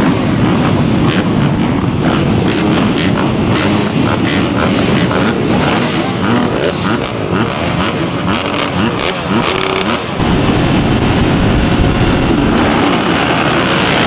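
Several dirt bike engines revving and running together, overlapping pitches rising and falling, loud throughout with a short dip about ten seconds in.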